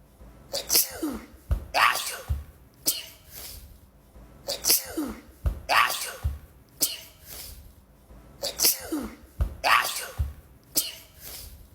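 A woman sneezing over and over in a fit, a sharp sneeze every second or so, some ending with her voice falling in pitch. The same short run of sneezes repeats about every four seconds, as a loop.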